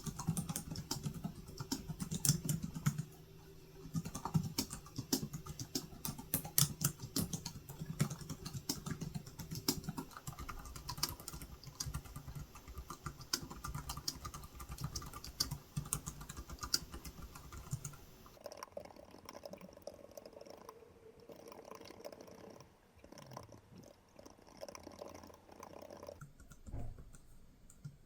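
Typing on the keys of a DSM magic-keyboard-style iPad keyboard case: a quick, continuous clatter of key clicks that thins out to fewer, quieter taps for the last ten seconds or so.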